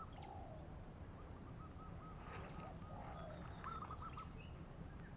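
Faint bird calls: long runs of short repeated notes, several a second, with a few short falling notes between them, over a low steady rumble.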